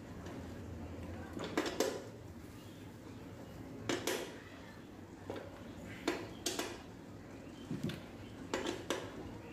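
Steel wrench tightening the 12 mm bolts on the reverse gear shifter inside an open Maruti Suzuki Alto 800 gearbox casing: sharp metal clinks, mostly in pairs, every couple of seconds.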